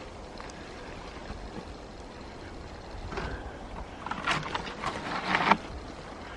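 Wind rumbling on the microphone. About three seconds in, a couple of seconds of rustling and crunching in the woodland undergrowth build to a sharp loudest crackle just before the end.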